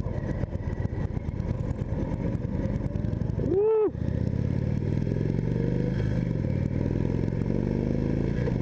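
2015 Indian Chief Vintage's Thunder Stroke 111 V-twin engine pulling away and accelerating, its note climbing steadily over the last few seconds as the bike picks up speed. About three and a half seconds in, a brief loud pitched sound that rises and then falls in pitch cuts across it.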